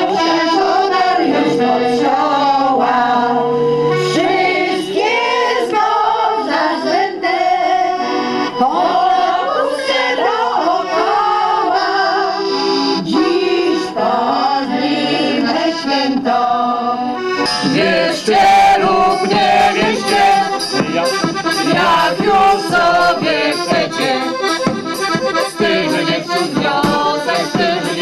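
An accordion plays a folk tune while a group of women sing along. About seventeen seconds in, it changes to another song carried by a steady drum beat under the singing.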